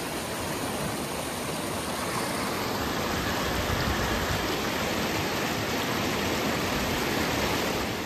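Whitewater river rapids rushing steadily over and between large boulders.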